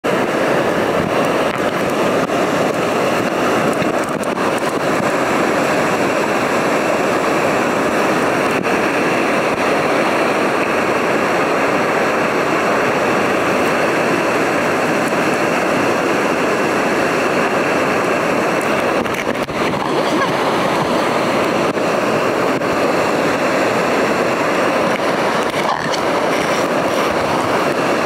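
Loud, steady rushing of a waterfall and the white-water rapids below it, heard close up. There is a brief slight dip about two-thirds of the way through.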